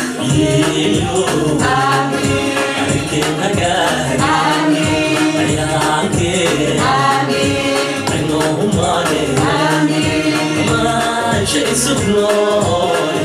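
A Somali song sung live into a microphone over electronic backing music with a steady beat.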